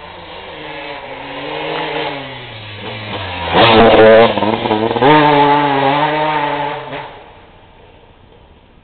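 KTM enduro motorcycle ridden past, its engine getting louder as it comes, loudest with a drop in pitch about three and a half seconds in, then fading away quickly after about seven seconds.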